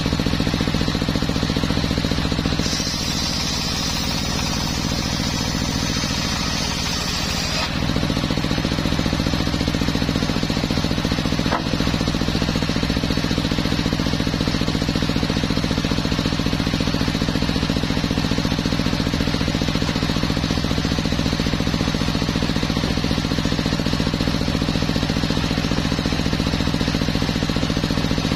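Homemade engine-driven circular sawmill running steadily. About three seconds in the blade cuts into the teak with a bright, hissing rasp for about five seconds while the engine note drops under the load, then it returns to running free. There is a single short click near the middle.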